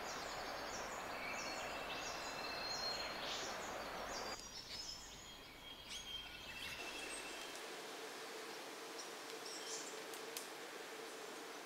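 Rainforest ambience with several birds calling: many short, high chirps and whistles over a steady background hiss. The background shifts abruptly about four and seven seconds in.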